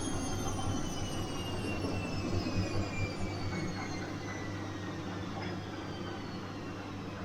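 Bosch washing machine running: a steady low hum with a high motor whine that glides slowly down in pitch.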